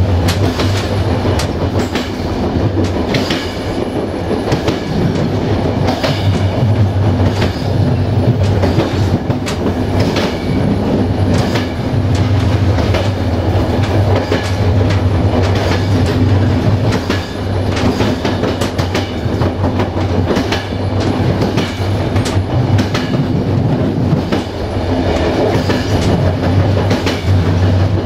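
Passenger train running along the line, heard from the rear coach: wheels clicking over rail joints in a repeating rhythm over a constant low rumble of the running gear.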